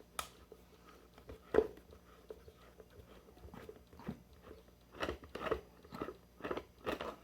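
Small plastic clicks and taps from handling and unscrewing an electrical plug with a screwdriver, a few scattered at first and then a quicker run of clicks near the end.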